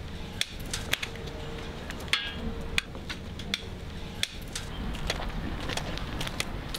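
A white cane tapping on the ground in a steady walking rhythm: sharp taps roughly every half second to second, over a low steady hum.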